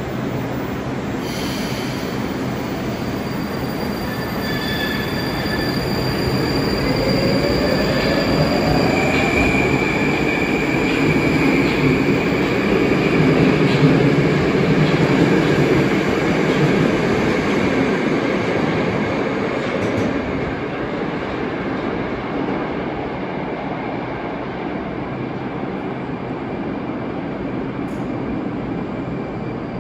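Moscow Metro train running on the rails, its wheels squealing in high thin tones for several seconds, with a rising whine a few seconds in. The running noise swells to a peak about halfway through and then eases off.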